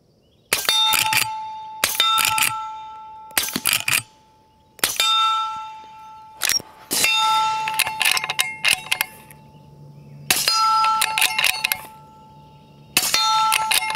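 Integrally suppressed .44 Magnum lever-action rifle firing at steel targets: each muffled report is followed by the clang of the bullet striking steel, which rings on at two pitches for a second or more. About half a dozen hits a second or two apart, the ringing steel far louder than the suppressed shots.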